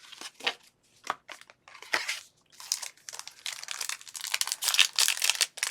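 Foil booster-pack wrapper of Pokémon trading cards crinkling and tearing as a pack is opened, after a few light taps of cards being handled. The crinkling starts about halfway through and gets louder toward the end.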